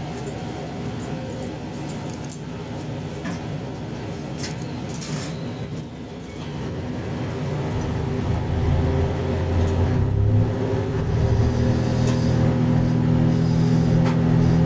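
JR Shikoku 2700 series diesel railcar's engine running, growing louder about seven seconds in and holding a steady low drone, with faint clicks over it.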